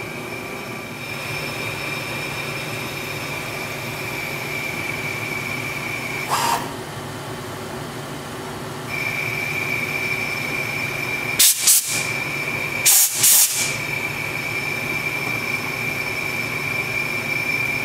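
Hardinge HLV CNC lathe boring the chamber of a rifle barrel under coolant in a deep boring cycle: the cut is a steady high whine that drops out for a couple of seconds about a third of the way in and then resumes. A few short, loud noisy bursts break in, once near the gap and twice in pairs after the middle.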